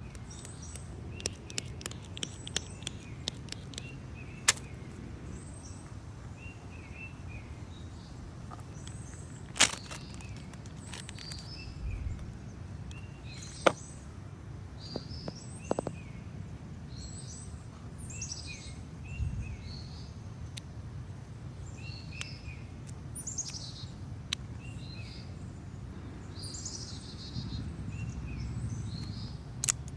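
Small birds chirping on and off over steady low background noise, with scattered sharp clicks and snaps, three of them standing out loudly in the first half.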